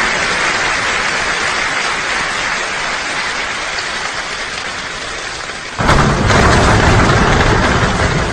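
Summer rain drumming steadily on a roof. About six seconds in, a clap of thunder starts suddenly, louder than the rain, and rumbles on for a couple of seconds.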